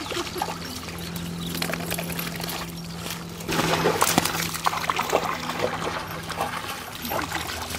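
Dogs wading and splashing in shallow lake water, with a louder stretch of splashing about halfway through.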